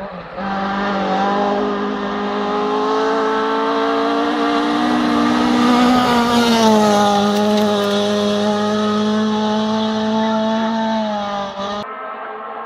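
Rally car on a gravel stage approaching at high, steady revs, loudest as it passes close by about six seconds in, where its engine note drops, then pulling away. The sound cuts off suddenly near the end.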